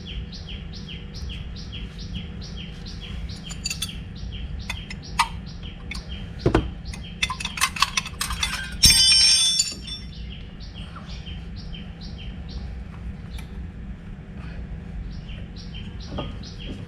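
Brake pads being worked out of a disc brake caliper: a series of sharp metal clicks and clinks, with a brief ringing metallic scrape about nine seconds in. A bird chirps steadily and evenly, a few times a second, over a low background rumble.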